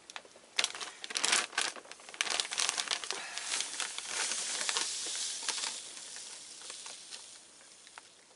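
Plastic bag of white sugar crinkling and crackling as it is handled, then a softer hiss that fades away as the sugar pours into a measuring cup.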